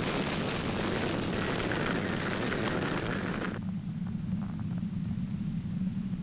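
Roar of a tornado's wind, cutting off abruptly about three and a half seconds in and leaving a lower, steady rumble.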